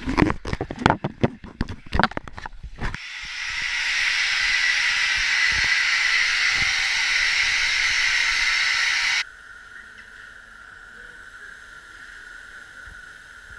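Compressed gas hissing steadily through a valve on a diving bell's gas panel, swelling in over about a second and cutting off suddenly. Before it, a few seconds of irregular clatter and knocks; after it, a faint steady hum.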